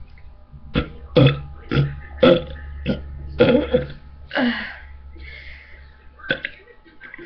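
A person burping: a run of short, separate burps, about seven in quick succession, then a pause and one more near the end.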